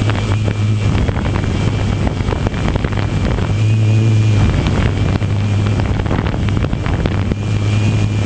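Multirotor drone's electric motors and propellers running steadily in flight: a low hum with a thin, slightly wavering high whine, growing a little louder about halfway through and again near the end. Wind buffets the microphone throughout.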